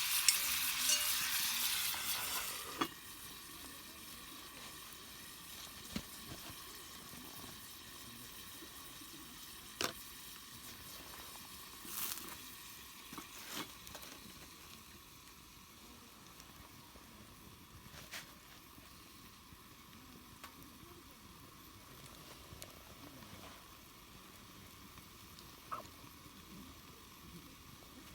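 Food sizzling in a pan, loud for about the first three seconds and then dropping suddenly to a quieter, steady sizzle, with a few sharp clicks here and there.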